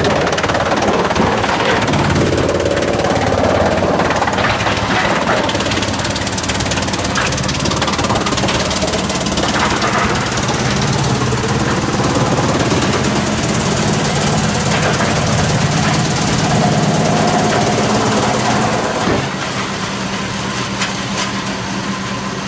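GX218 wood chipper running loud under load, with a steady low machine hum and irregular cracking and knocking throughout, the sound of wood being chipped. About nineteen seconds in the knocking eases and the level drops, leaving a steadier running hum.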